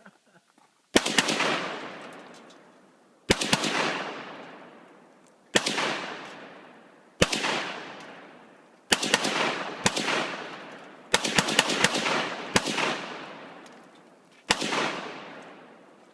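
Rifle gunfire: about nine single shots fired 1 to 2 seconds apart, each a sharp crack followed by a long fading echo.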